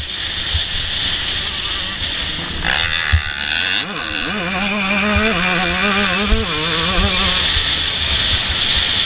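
Yamaha YZ125's two-stroke single-cylinder engine running close-up, its pitch rising and falling as the rider works the throttle along the track, with a few short knocks scattered through.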